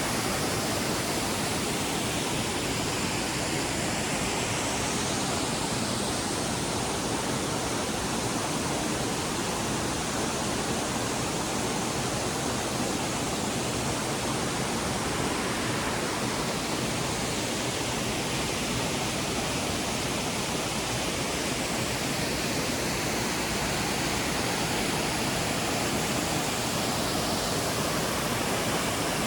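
Steady rush of a waterfall, falling water making an even, unbroken noise.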